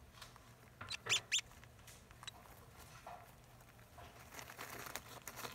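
African soft-furred rats rustling and scratching about in shredded newspaper bedding. A few short, sharp high sounds come about a second in, and a longer stretch of paper rustling with small clicks comes near the end.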